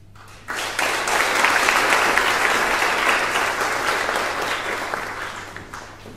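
Audience applauding, starting abruptly about half a second in and slowly dying away toward the end.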